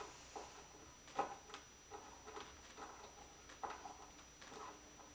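Light, irregular clicks, about two a second, of a screwdriver turning the small screws with washers that hold the head onto a wooden spinning wheel.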